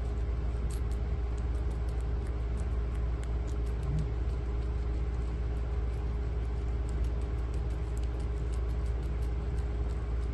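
Guinea pigs chewing fresh parsley: small irregular crunching clicks over a steady low hum.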